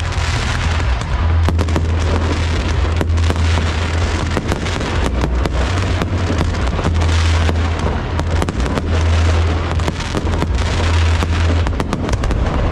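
Aerial fireworks display going off continuously: a dense run of sharp cracks and pops over a constant low rumble of booms.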